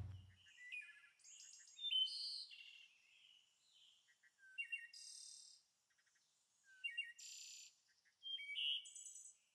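Music cutting off at the start, then faint, scattered high-pitched bird chirps and short calls.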